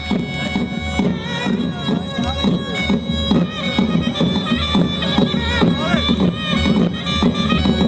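Armenian folk song performed by an ensemble: a wind-instrument melody over steady held drone notes, with a regular low drum beat.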